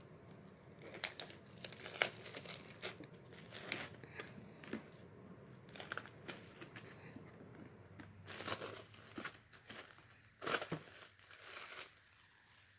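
Plastic packaging around a boxed DVD set crinkling and tearing as it is handled and unwrapped by hand. The crackles come irregularly, with louder bursts about eight and a half and ten and a half seconds in.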